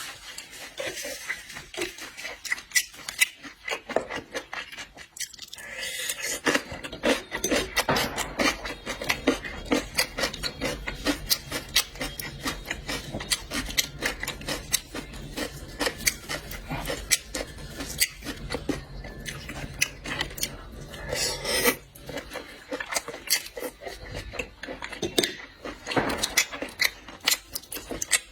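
Close-miked eating of seafood: a steady stream of small clicks, crackles and scrapes from chewing and from handling shells and utensils.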